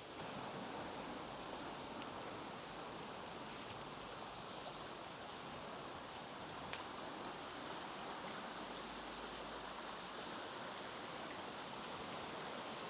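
Steady rush of running water from a small woodland stream, with a few faint high bird chirps.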